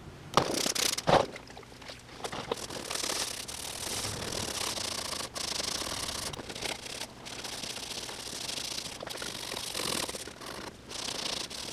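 Scouring pad scrubbed back and forth over the snowmobile's metal chassis, a steady scratchy rubbing that pauses briefly a few times as the strokes change. A few knocks come in the first second or so.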